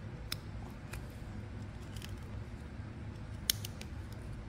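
Knife whittling a thin stick of wood: a few short, crisp slicing clicks as the blade cuts, the sharpest about a third of a second in and about three and a half seconds in, over a low steady hum.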